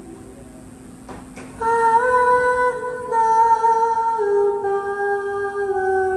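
Live doom metal band in a quiet, slow passage: after a hushed opening second and a half, a melody of long held notes comes in and steps slowly from pitch to pitch, over a faint steady hum.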